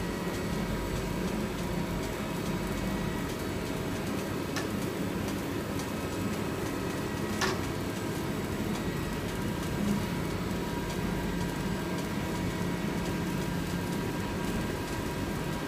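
3D lens and hologram film embossing machine running steadily, its rollers carrying PET film: a continuous machine hum with a faint high whine, and a couple of brief sharp clicks partway through.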